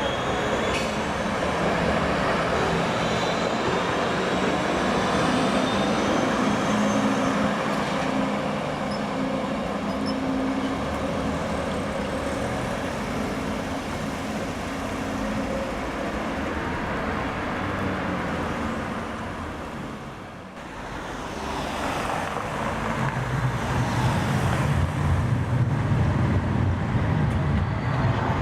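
Tram and road traffic in a city street: steady vehicle noise with a low hum. It dips briefly about two-thirds through, then a louder low rumble builds toward the end as a tram comes close.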